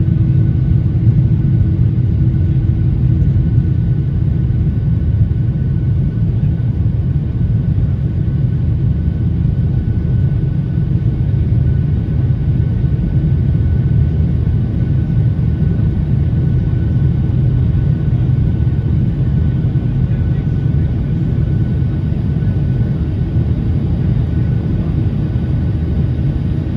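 Airliner cabin noise heard from a window seat: a steady low rumble of jet engines and airflow, with a faint steady high whine. A lower hum fades out about five seconds in.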